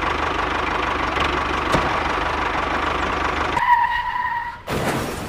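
Tractor engine running steadily with a fast, even knocking beat. It cuts off about three and a half seconds in, and a brief steady tone follows.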